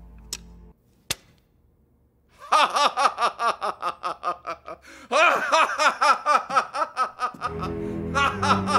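A man laughing heartily in two long bouts of rapid 'ha-ha-ha' pulses, about four a second. A sharp click comes about a second in, and background music rises near the end.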